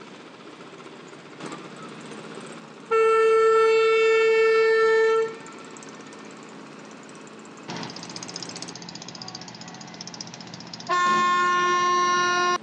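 Ship's horn on a river passenger launch sounding two long, steady blasts, the first about three seconds in and the second, lower-pitched one near the end. A low hum of vessel engines lies underneath.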